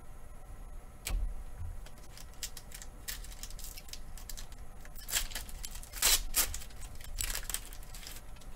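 A sharp click about a second in, then a foil booster pack of Pokémon cards crinkling as it is handled and torn open, loudest around six seconds in.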